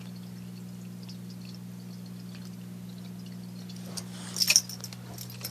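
A steady low hum with faint ticking, then a quick cluster of loud sharp clicks about four and a half seconds in.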